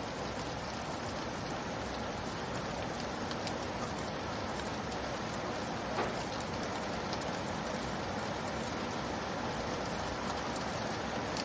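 Steady rain: an even hiss of falling rain with scattered drop ticks, one a little sharper about six seconds in.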